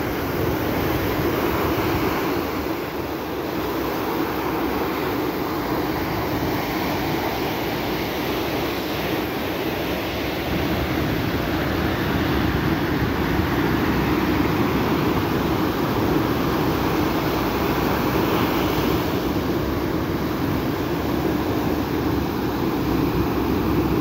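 Ocean surf breaking and washing up a sandy beach: a steady rushing noise with a low rumble underneath.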